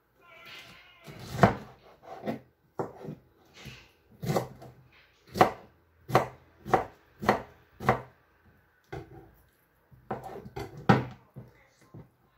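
Kitchen knife slicing a peeled pineapple on a plastic cutting board: about a dozen separate cuts at an uneven pace, each ending in a sharp knock of the blade on the board.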